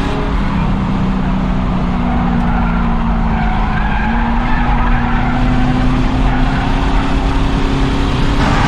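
Race car engine running hard at speed on an oval, heard from the car, with tyre and road noise. The engine pitch sags a little in the middle and then climbs steadily again.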